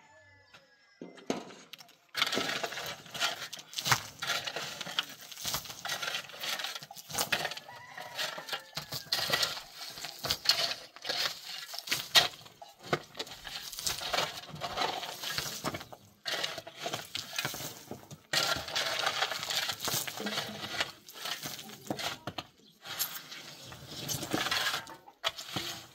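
Busy clattering and clinking of hard objects being handled, with many short knocks close together, starting about two seconds in and breaking off briefly a few times.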